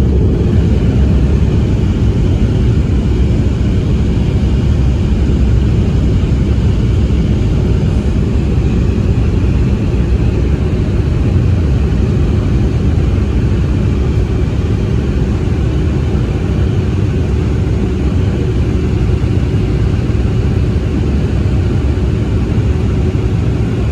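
Embraer E190-E2's Pratt & Whitney PW1900G geared turbofan engines running with a loud, steady rumble and a faint steady whine above it.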